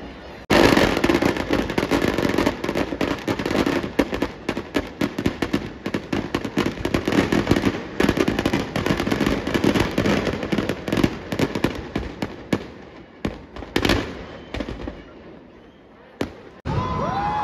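Firecrackers packed into burning effigies going off in a dense, rapid crackling barrage that starts suddenly about half a second in, thins out after about twelve seconds into a few scattered bangs, and ends with an aerial firework shell bursting near the end.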